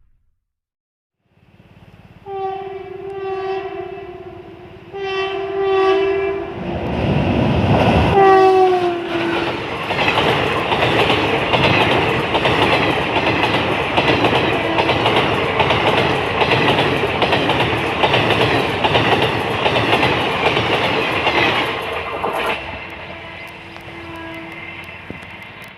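Intercity express train's horn sounding three blasts, the third falling in pitch as the train passes. It is followed by the train's wheels clattering rhythmically over the rails of a bridge for about fifteen seconds, fading away with one more fainter horn blast near the end.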